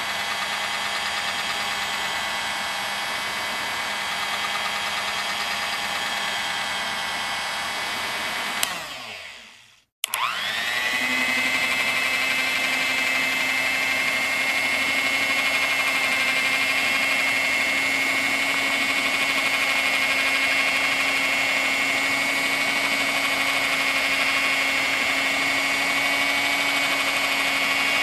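Vintage electric mixer beating in a bowl at low speed. About eight and a half seconds in it clicks off and winds down to silence. It then starts again at high speed, spinning up quickly and running steadily with a higher-pitched whine.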